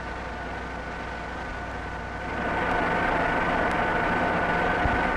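Vertical turret lathe (vertical boring mill) running, a steady mechanical hum with a whine over it. About two seconds in the sound grows louder and more whine tones join.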